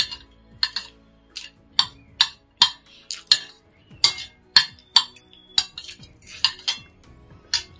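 Metal fork and spoon clinking and scraping against a ceramic plate, about two sharp clinks a second, as the last noodles are gathered up from the nearly empty plate.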